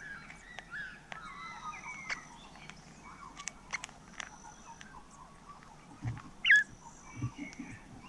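Birds chirping and whistling, with scattered sharp clicks throughout. About six and a half seconds in comes one short, sharp call, the loudest sound, alongside a few low thumps.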